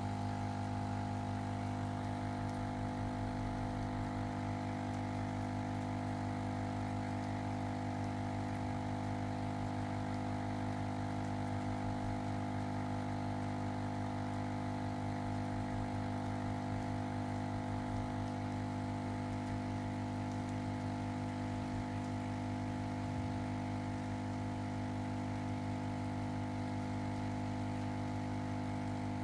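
Ozone generator running with a steady electrical hum made of several constant low tones.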